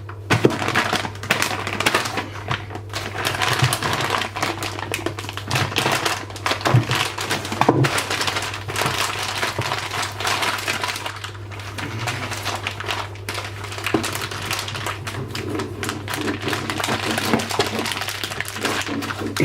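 Dense, continuous crackling, crinkling and clicking, like a giant dog chew's packaging being handled and torn, over a steady low hum.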